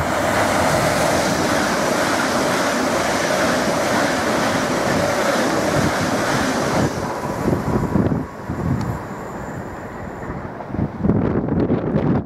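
A Great Northern Class 387 electric multiple unit runs through close by at speed: a loud, steady rush of wheels and air for about seven seconds that then falls away. Gusts of wind buffet the microphone after it has passed.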